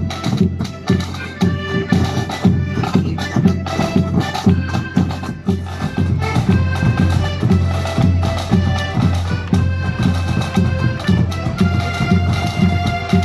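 Accordion band playing a traditional tune together, the accordions holding sustained chords over a steady low beat about twice a second.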